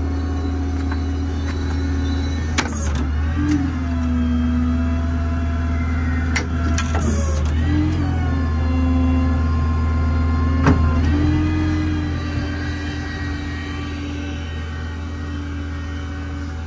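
A Ford F-550's V10 engine running under a steady low hum, with the hydraulic pump whining on top. The whine's pitch sags and recovers three times, each time with a clunk, as the hydraulic system takes load.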